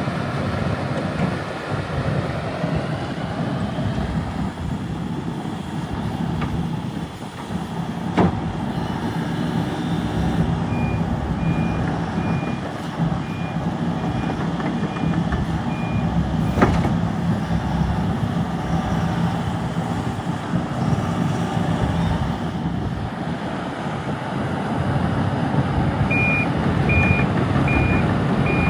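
Kobelco SK130LC-11 hydraulic excavator's diesel engine running steadily, with its travel alarm beeping about twice a second in two spells, a third of the way in and near the end. A couple of sharp knocks from the machine are also heard.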